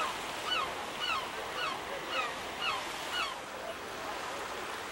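A gull calling a quick series of short yelping notes, about two a second, that stops a little over three seconds in, over a steady background hiss of surf and wind.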